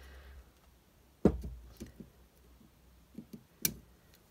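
Handling of a piston and piston ring expander pliers on a workbench: a knock with a low thud about a second in, then a few light clicks and a sharper metal click near the end.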